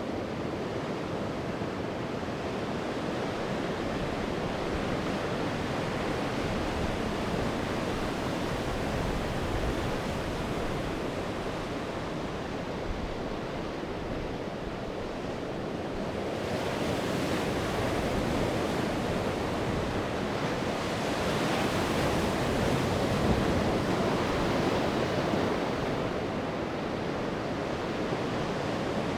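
Sea waves breaking and washing up the shore in a continuous rush, with two louder, hissing breakers swelling in past the halfway point.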